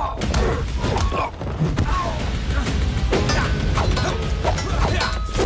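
Action-film fight soundtrack: background score under repeated punch and body-impact hits, with grunts of effort.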